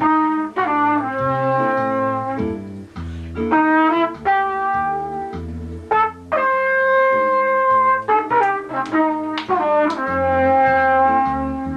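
A trumpet playing a melody of short and held notes, with one long held note in the middle, over a low accompaniment.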